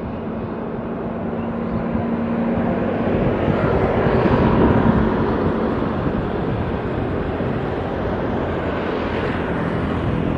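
Jet engine noise from an Airbus A320-232, which has IAE V2500 turbofans: a dense, steady rumble that swells to its loudest about four to five seconds in, then eases off a little.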